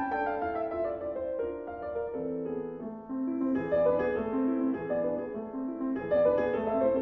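Background piano music, a flowing line of notes moving up and down.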